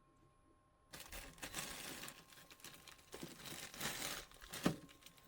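Plastic packaging crinkling and rustling as it is handled, starting suddenly about a second in after a faint steady hum.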